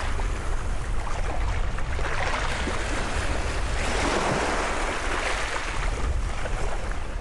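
Baltic Sea surf washing onto the beach in a steady rush, with wind rumbling on the microphone.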